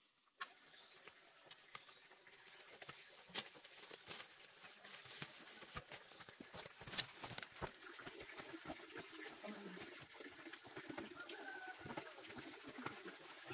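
Faint footsteps and rustling through leaf litter and undergrowth, irregular crunches and knocks, with a few short bird calls.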